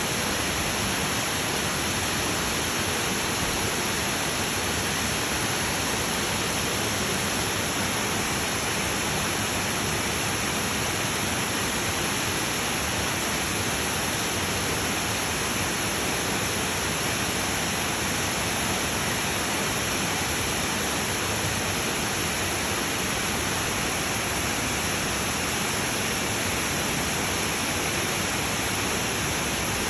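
Rushing mountain water, a steady, unbroken hiss of falling or tumbling water.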